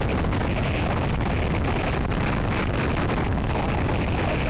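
Gusty wind blowing across the microphone: a steady rushing noise, heaviest in the low end.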